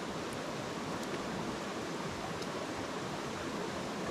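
Steady rushing of a flowing creek.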